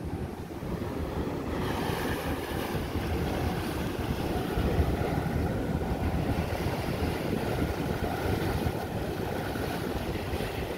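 Wind buffeting the microphone on a ferry's open upper deck, over the steady rush of harbour water along the moving hull. About a second and a half in, a brighter hiss joins.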